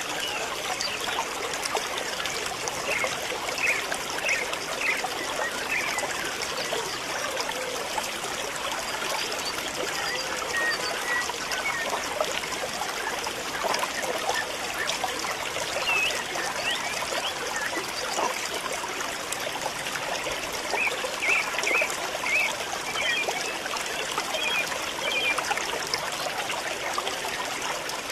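Steady rushing, trickling noise like running water, with short runs of small high chirps twice.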